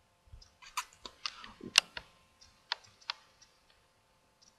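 A handful of sharp, irregular clicks and taps, about six over a couple of seconds, the loudest a little under two seconds in.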